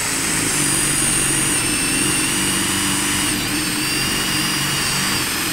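Cordless drill running steadily under load as a flat spade bit with no threaded tip bores into pressure-treated wood. The motor whines continuously, and its pitch dips slightly about three seconds in. Without a screw tip pulling it in, this bit cuts more slowly than a threaded one.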